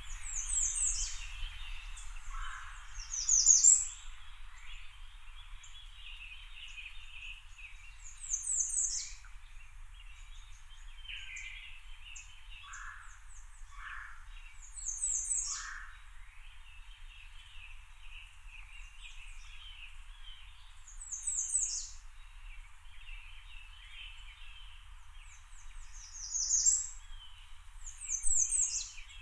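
Forest birdsong: one bird repeats a short, high song of quick falling notes every few seconds over a steady background of other birds chirping. A low steady rumble runs underneath.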